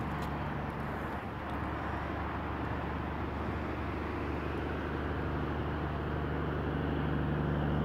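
A motor vehicle's engine humming steadily on a nearby road, growing gradually louder toward the end as it approaches.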